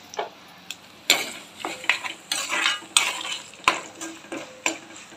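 Steel ladle stirring and scraping around a metal kadai as peanuts, curry leaves and chillies fry in oil with turmeric, the tempering for lemon rice. A series of irregular scrapes and clinks, about two a second, begins about a second in over a faint sizzle.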